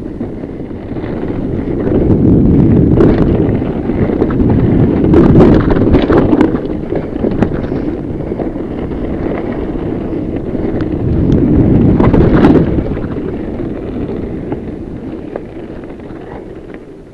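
Wind buffeting the microphone while a fat bike rides a rough dirt trail, with tyre rumble and sharp knocks and rattles from the bike over bumps. It swells loudest about 2 s in, again around 5 to 6 s and about 12 s, then eases off near the end.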